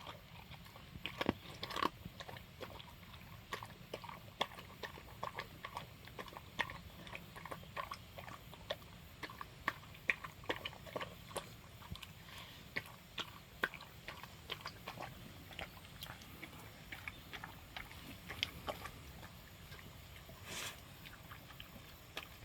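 A dog eating its food: irregular sharp crunches and clicks of chewing, several a second.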